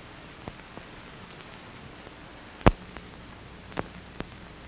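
Steady hiss of an old film soundtrack with a handful of sharp clicks and pops, one much louder than the rest about two and a half seconds in.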